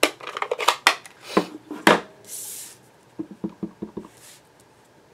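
Hard plastic ink pad case handled and snapped open, with several sharp clicks and knocks, then a short rustle. A clear-mount rubber stamp on an acrylic block is tapped about eight times in quick succession on the ink pad to ink it.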